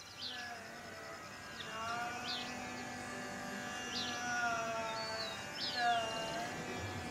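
Tanpura plucked as a drone under a voice singing long notes that glide slowly up and down. Short, high, downward-sweeping bird chirps repeat every second or two.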